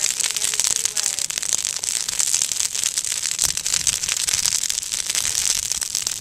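Wildland fire crackling and popping in a rapid, continuous stream of sharp snaps as flames burn through dry brush and shrubs.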